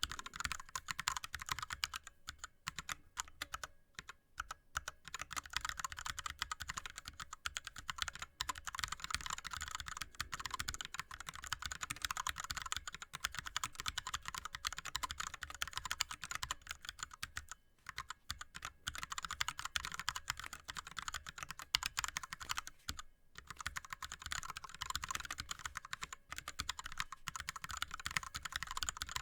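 Fast touch-typing on an ErgoDox mechanical keyboard with Cherry MX Red linear switches and blank DSA keycaps: a rapid, continuous clatter of keystrokes with a few brief pauses.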